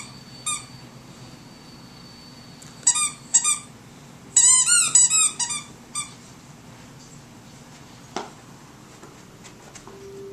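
Squeaker in a plush dog toy squeaking in short high-pitched squeaks as an English Mastiff puppy chews it: two at the start, three about three seconds in, a quick run of squeaks around four to five and a half seconds, and one more near six seconds. A single short knock comes about eight seconds in.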